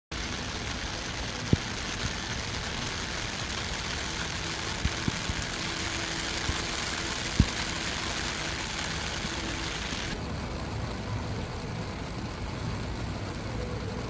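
Heavy rain falling steadily as an even hiss, with a few sharp taps of drops landing close to the microphone. The hiss turns duller about ten seconds in.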